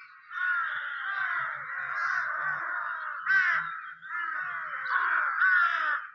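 A flock of crows cawing together, many harsh calls overlapping in a constant din.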